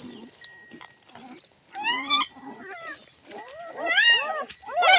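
Young puppies whining and yelping: high, wavering cries that rise and fall, several overlapping, in bouts about 2 s in, around 4 s and loudest near the end.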